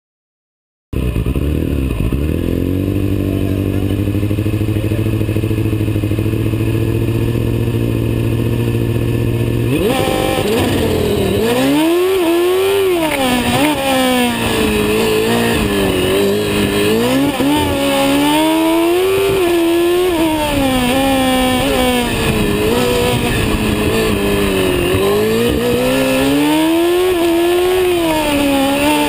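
Formula Student race car's engine heard onboard: it holds steady revs for about nine seconds, then the car sets off and the revs climb and drop again and again as it accelerates and brakes through an autocross course.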